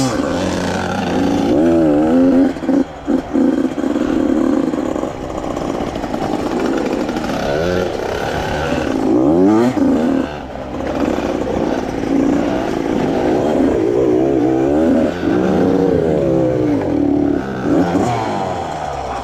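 85cc two-stroke dirt bike engines revving hard, the pitch repeatedly climbing and dropping as the throttle is worked, with a few brief cuts where the throttle is chopped.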